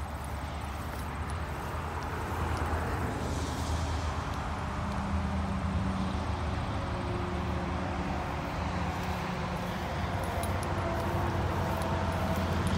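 Steady low hum of a running vehicle engine under even outdoor background noise, growing slightly louder over the first few seconds.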